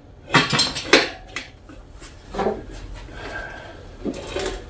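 Steel tire iron and metal wheel rim clinking and knocking as a dirt bike tire is levered up and the inner tube worked in, with rubber rubbing between the knocks.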